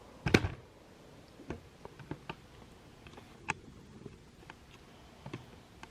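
A sharp knock about a third of a second in, followed by scattered light clicks and ticks at irregular intervals.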